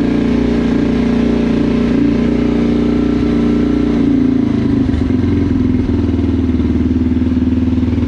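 Yamaha TTR230's single-cylinder four-stroke engine running steadily just after a cold start on choke. Its note changes about five seconds in.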